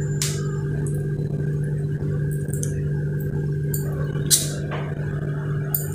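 A steel spoon scraping and clinking against a stainless steel plate while scooping vegetable filling and spreading it on bread, over a steady low hum. The sharpest clink comes about four seconds in.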